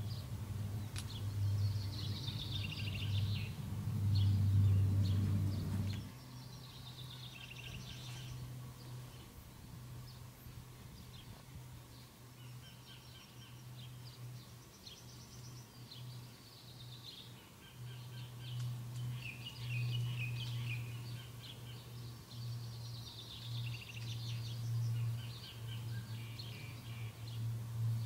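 Songbirds chirping and singing in repeated short phrases, over a low steady hum that is loudest for the first six seconds and then drops to a quieter level.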